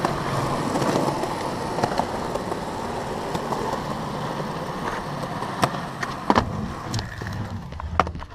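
Skateboard wheels rolling on concrete after a push-off: a steady rumble, with a few sharp clacks from the board.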